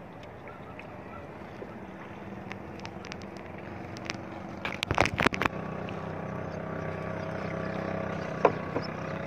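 A fishing net being hauled out of the sea over the side of a wooden outrigger boat, water splashing and dripping off the mesh, with a quick cluster of loud knocks against the hull about five seconds in and another single knock near the end. From about six seconds in, the steady hum of a motorboat engine grows under it.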